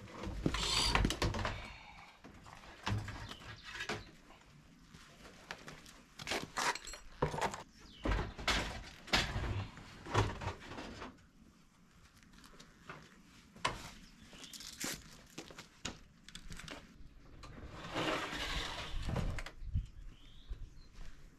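Weeds and dry plant stems being worked by hand: irregular rustling, tearing and snapping, with short sharp clicks.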